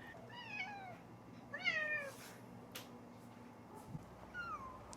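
Domestic cat meowing three times, each meow falling in pitch, the second the loudest and the last faintest. A brief click sounds between the second and third.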